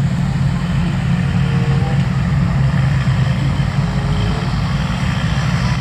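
Large farm tractor's diesel engine running steadily as it pulls a trailer across a field: a low, even drone.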